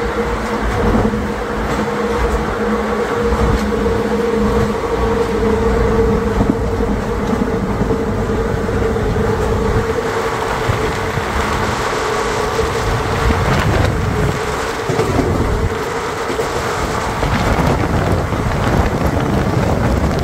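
Indian Railways passenger train running at speed, heard through an open coach door: a loud, steady rumble of wheels on the track mixed with rushing air. A steady humming tone runs through it and fades about two-thirds of the way in.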